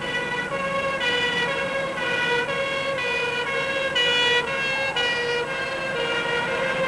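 Two-tone emergency vehicle siren, stepping between a higher and a lower note about every half second, over traffic.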